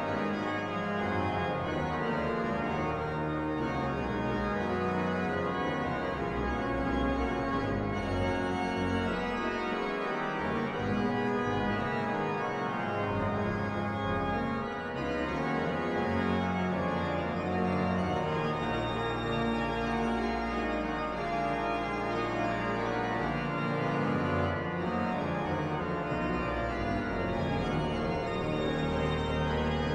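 Baroque pipe organ, the 1727 Müller organ, being played: continuous music of held chords over low bass notes that change every few seconds.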